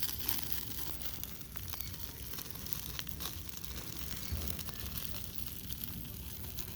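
Wood campfire crackling, with scattered small pops over a low rumble.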